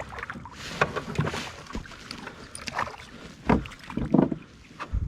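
Handling noises in a small fishing boat: irregular knocks, thumps and scrapes, loudest about three and a half and four seconds in, as the landing net is got out from under the seat while a fish is on the line.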